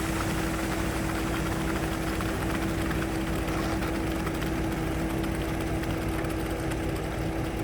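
A machine's engine running steadily, with a constant droning tone that does not change.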